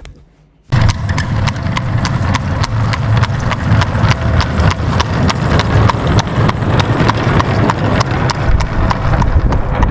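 Horse hooves clip-clopping in a steady, even rhythm, about four hoofbeats a second, over a low rumble. The sound starts suddenly just under a second in.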